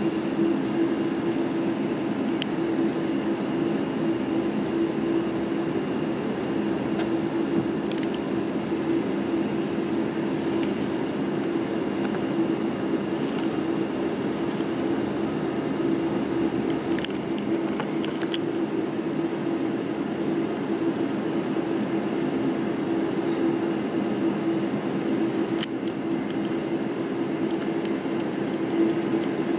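Inside the cabin of a Boeing 747-8i as it taxis: the steady hum of its GEnx-2B engines at idle, with a strong even drone and a few faint knocks.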